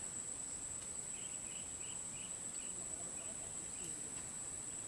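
Steady high-pitched drone of insects such as crickets, with a run of short repeated chirps about a second in.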